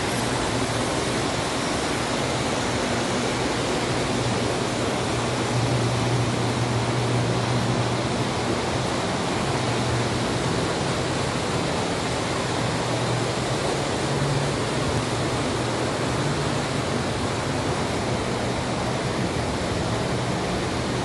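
Standard gauge tinplate model trains running on metal track: a steady rumble and hiss with a wavering low hum.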